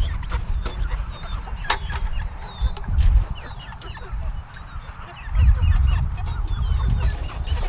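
A flock of meat chickens clucking and peeping, with a sharp knock a couple of seconds in. Under the birds a low rumble swells twice, around three seconds in and again from about five and a half seconds.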